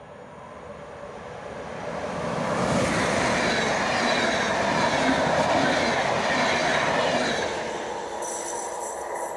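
Passenger train of yellow RegioJet coaches, locomotive-hauled, passing through at speed. The rumble and clatter of wheels on rail swell as it approaches, stay loudest for about four seconds while the coaches go by, then fade as it leaves.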